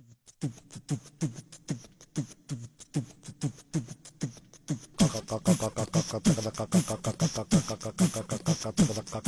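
Beatboxing: a steady beat of vocal kick-drum sounds with a falling pitch, which turns louder and fuller about five seconds in as hissing hi-hat-like sounds and more layers join.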